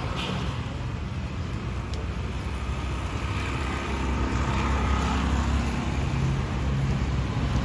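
Steady low rumble of road traffic, swelling over the second half as a vehicle passes close by.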